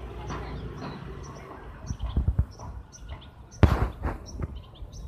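Small birds chirping: short high chirps repeating throughout, over a low rumble. A few knocks, and a loud brief rustling burst about three and a half seconds in.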